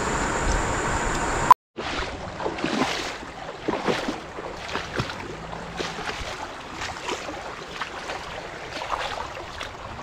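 A steady rushing noise that cuts off abruptly about a second and a half in, then irregular splashing and sloshing of shallow river water as a person crouched in the river works with his hands in it.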